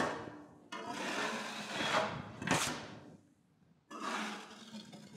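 Steel taping knife scraping joint compound across drywall in sweeping strokes, a rasping swish with each pass: the final smoothing pass of a coat of mud. The sound cuts out for under a second just past the middle, then the scraping resumes.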